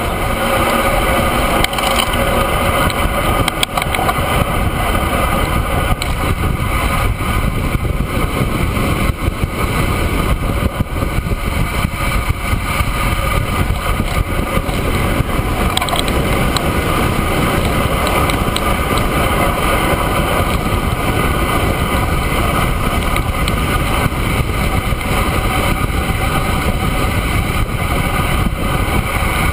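Steady rush of wind and tyre noise on a handlebar-mounted camera of a road bike riding at speed.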